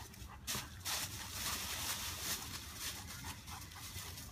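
Dry fallen leaves rustling and crunching as two dogs run and scuffle through them in play.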